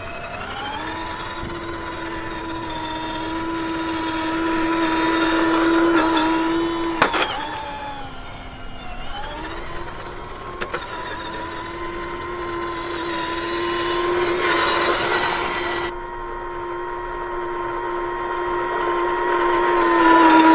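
RC4WD Ford Raptor scale truck's electric motor and drivetrain whining as it drives over gravel. The pitch slides up as it speeds off, drops about seven seconds in as it slows, then climbs again and holds steady, with light gravel crunch from the tyres.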